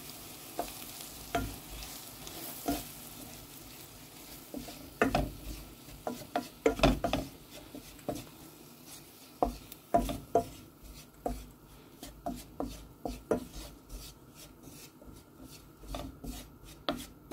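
A spatula stirring and scraping flour into oil and softened spring onions in a non-stick frying pan, with irregular scrapes and taps against the pan over a faint sizzle: a roux being cooked, the flour still dry and crumbly rather than a paste.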